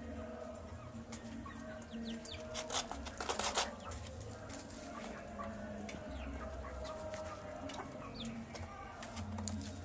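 Young chicks peeping while they feed, with a cluster of sharp taps and clicks about two and a half to four seconds in over a low steady hum.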